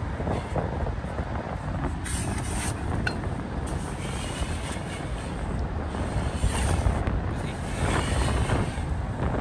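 Wind buffeting the microphone, a steady low rumbling noise that swells in gusts a couple of times.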